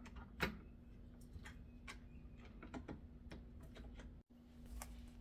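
Scattered small clicks and taps of smart-lock parts being handled and fitted onto a door, the loudest about half a second in, over a faint steady hum.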